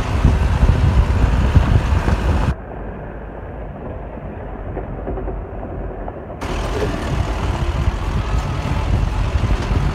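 Steady engine and road rumble of a moving pickup-type passenger vehicle, heard from inside the cabin. About two and a half seconds in it drops to a quieter, muffled rumble for about four seconds, then comes back at full level.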